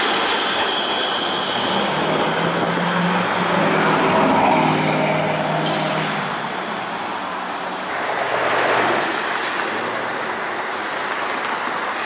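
PCC streetcar running along a city street amid road traffic, with a steady hum in the middle, then ongoing traffic noise.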